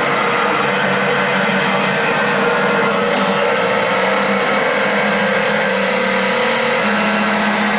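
Circuit-bent Yamaha PSS-790 vector synthesizer played on its keys, giving a steady, dense wash of noisy glitched tones with held notes that change every second or so.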